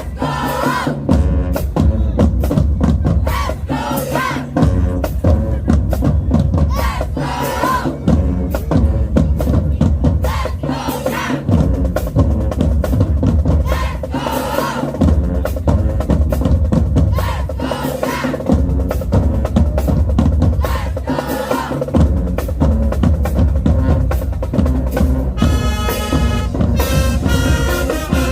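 Marching band drumline playing a loud cadence with heavy bass drums, over crowd shouts. The brass section comes in with sustained chords near the end.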